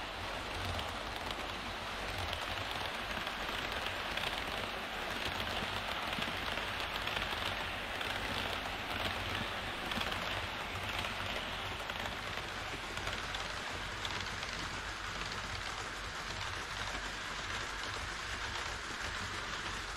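HO scale model trains rolling past on KATO Unitrack: first Twilight Express coaches, then an E5 Shinkansen. Their wheels on the rails make a steady rushing noise with a low rumble under it.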